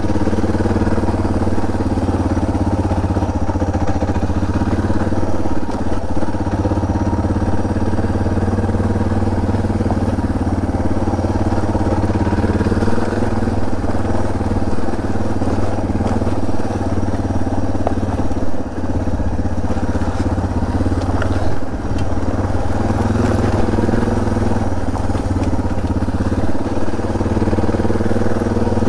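Suzuki DR650's single-cylinder four-stroke engine running steadily in second gear at low speed, pitch drifting a little with the throttle. A few short knocks and brief dips come partway through.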